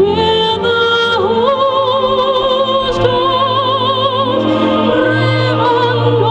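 A woman singing long held notes with a wide vibrato, over instrumental accompaniment.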